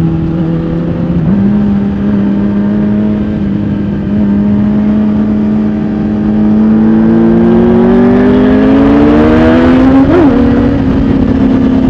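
Sport motorcycle engine running at highway speed, with wind noise from the rider's helmet mic. The pitch holds steady, steps up about a second in, then climbs for several seconds as the bike accelerates, with a quick rev near the end before it levels off.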